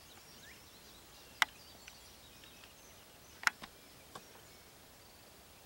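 Faint chirping of songbirds over a quiet rural background, broken by a few sharp clicks, the loudest about a second and a half in and again about three and a half seconds in.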